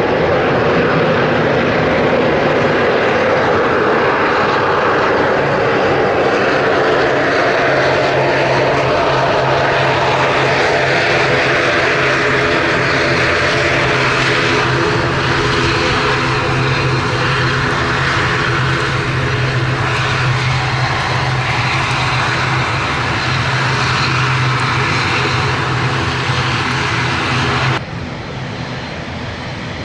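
ATR 72 turboprop's propellers and engines running loudly on the runway, a steady drone with a strong held low hum. About two seconds before the end the sound cuts to a quieter Dash 8 turboprop approaching to land.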